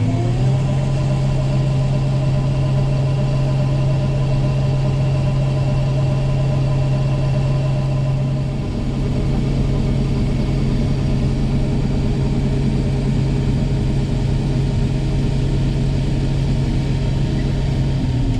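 Farm tractor engine running steadily at raised revs, revving up at the very start and dropping back right at the end.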